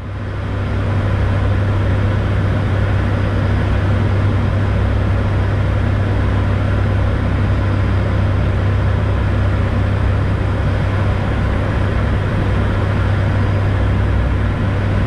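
Flight-deck noise of an ATR 72 turboprop airliner on approach: the steady drone of the propellers and engines, with a strong low hum and air rushing past the cockpit. It comes in loud at once and holds steady.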